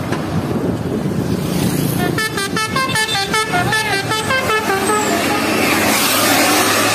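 Odong-odong mini tourist train's telolet musical horn playing a quick tune of stepped tones over its running engine, from about two seconds in to about five seconds in.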